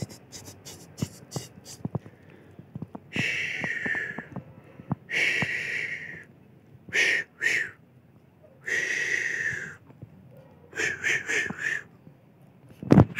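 Puppies whining in about six short, high, breathy cries, with soft ticking in the first couple of seconds.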